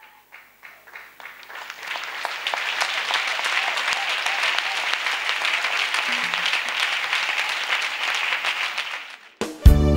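A large crowd applauding, building from scattered claps to steady, dense clapping within about two seconds. Near the end it is cut off by loud instrumental music with guitar and keyboard that comes in abruptly.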